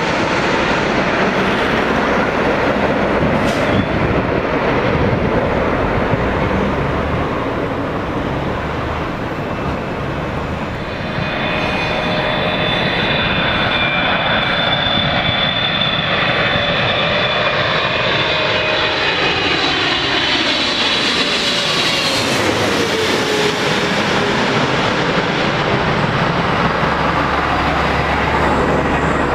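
Jet airliner on landing approach passing close by: a loud, steady engine roar with a high whine that slides down in pitch as it goes past, easing into a low rumble near the end.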